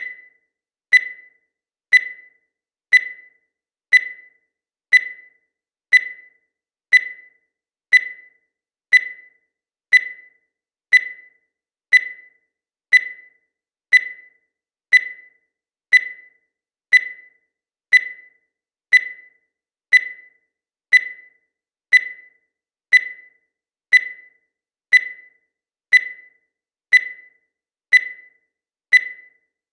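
Digital countdown timer beeping once a second, each beep marking one second of the countdown. Every beep is a short, high electronic tone that fades quickly, evenly spaced.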